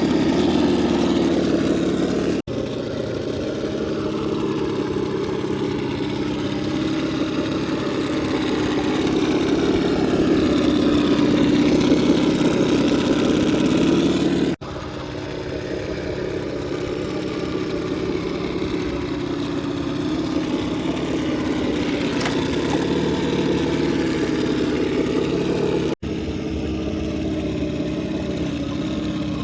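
Axial SCX10 II RC rock crawler's electric motor and drivetrain whining steadily as it crawls, the pitch drifting up and down with the throttle. The sound breaks off abruptly three times, about 2.5, 14.5 and 26 seconds in, and picks up again each time.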